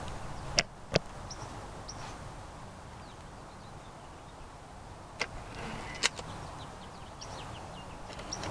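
Air rifle target shooting: four sharp cracks in two pairs, the .22 break-barrel spring-piston rifle firing and pellets striking the targets, one pair under a second in and another about five to six seconds in. Small birds chirp faintly between them.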